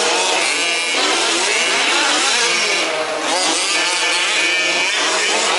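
Several 1/5-scale petrol RC buggies' small two-stroke engines buzzing together, each pitch rising and falling as they rev and ease off around the track.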